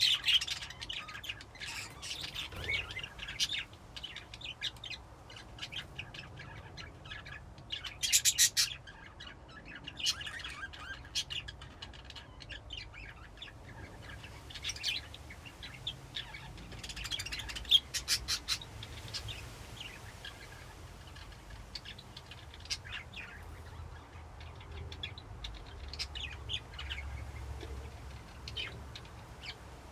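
A flock of budgies (budgerigars) chirping and warbling in a colony cage: continual overlapping chirps and chatter, with louder bursts of chattering about eight seconds in and again a little past halfway.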